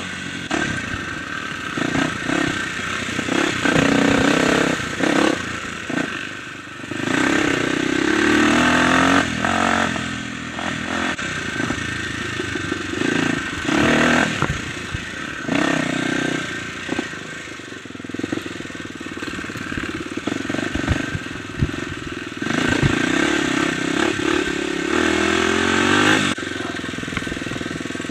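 Dirt bike engine revving up and down again and again as the throttle is opened and closed, with knocks and rattles from the bike over bumps.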